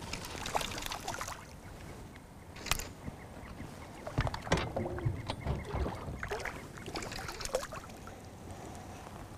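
A small hooked fish splashing and thrashing at the water surface beside the boat as it is played in on a fly rod, with water slapping and a few sharp knocks.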